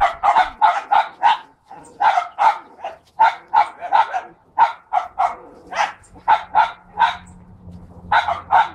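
Dog barking repeatedly in quick, sharp barks, about two to three a second, with a short break about a second and a half in.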